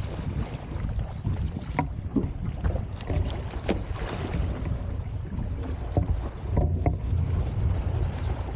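Wind buffeting the microphone over water washing around a Hobie Tiger F18 beach catamaran, with several brief clicks scattered through.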